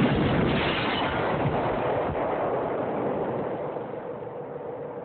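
Roar of a large dynamite explosion, the blast of a suicide bomber's charge, rumbling on and slowly dying away.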